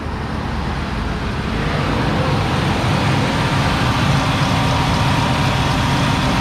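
Ford E350 van's engine running with both belt-driven AC compressors engaged. The accessory drive runs without the earlier squealing or grinding now that the belt, idler and pulleys are aligned. The sound grows a little louder over the first few seconds, then holds steady.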